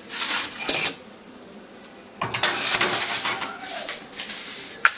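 Metal baking sheet clattering and scraping as it is slid onto an oven rack, in two bursts of handling noise, with one sharp clack near the end.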